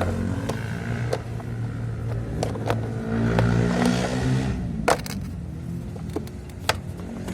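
Sharp clicks, light clatter and scraping as the terminal cover of an electric water heater is handled and fitted back after wiring, over a steady low hum.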